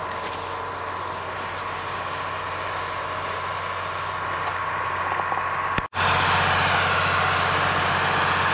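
Small motor-driven water pump running steadily, a constant drone and whine that grows louder. There is a brief dropout about six seconds in, and the sound is louder after it.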